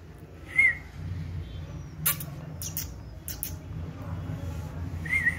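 Lhasa Apso puppy giving two short, high, wavering squeaks, one about half a second in and another near the end, with a few sharp clicks in between over a steady low hum.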